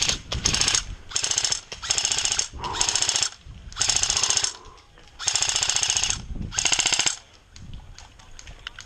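Airsoft electric AK rifle (Cyma CM042) firing full-auto bursts, about seven strings of rapid gearbox clatter each lasting half a second to a second, with the last burst ending about 7 s in.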